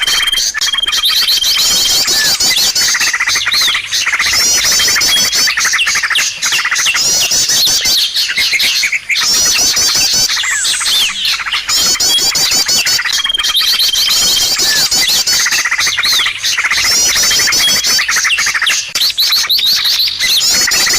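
Many small birds chirping and twittering densely without a break, with a short steady whistled note now and then; the same passage comes round again about every 13 seconds, the sign of a looped bird-lure (pikat) recording played to draw in all kinds of birds.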